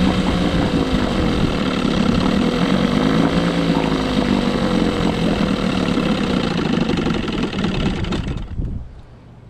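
1976 Johnson 6 hp two-stroke twin outboard motor running, its speed wavering up and back down, then stopping near the end.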